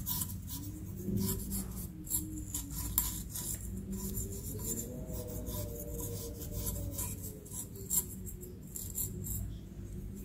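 A dark scrubbing pad rubbed quickly back and forth over a small metal spoon and cup, giving dry, scratchy strokes in an irregular rhythm as stains and scale are scrubbed off the metal. A faint wavering tone runs underneath.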